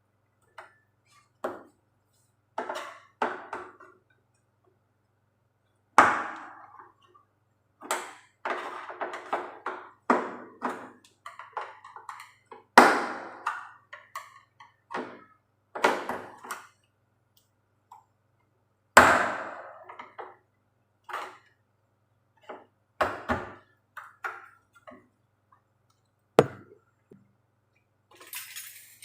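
Plastic cover of a washing machine being pried off with a tool: a run of sharp knocks, clicks and short scrapes, with three hard knocks about six, thirteen and nineteen seconds in.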